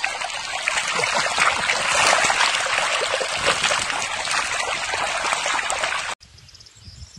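Shallow water rushing and splashing over stones in a river bed, cutting off suddenly about six seconds in.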